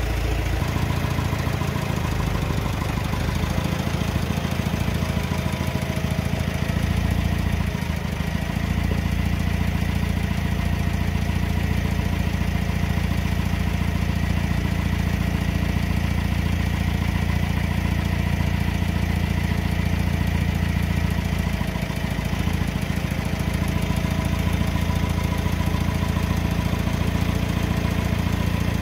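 Engine of a JCB lifting machine running steadily while it carries a hoisted car engine, its note shifting slightly about eight seconds in.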